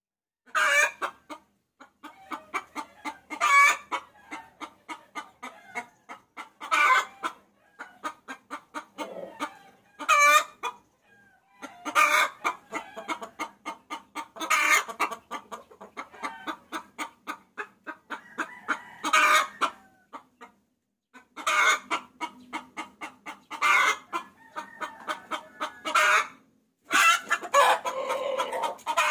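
A hen cackling: runs of rapid clucks, each run building to a louder, drawn-out note, repeated every few seconds. It is a hen calling for a rooster, the kind of call used to lure cocks.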